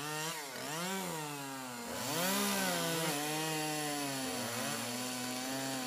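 Small knife sawing through packing tape and cardboard on a shipping box, making a continuous buzzing squeal whose pitch rises and falls with the knife strokes.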